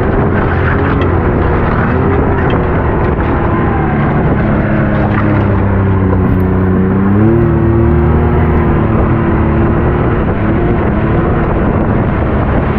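Can-Am side-by-side's engine running steadily as it is driven along a muddy trail, stepping up in pitch about seven seconds in.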